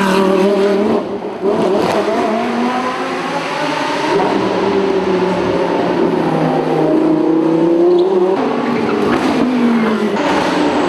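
Several GT race cars passing close by in quick succession, their engine notes rising and falling as the revs change and overlapping one another.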